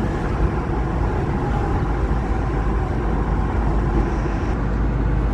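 Car cabin noise while driving along a road: a steady low rumble of engine and tyres with an even road hiss.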